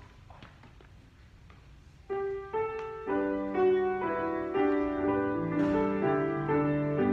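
Faint clicks and shuffling, then about two seconds in a keyboard instrument starts playing the introduction to the entrance hymn, held chords under a moving melody.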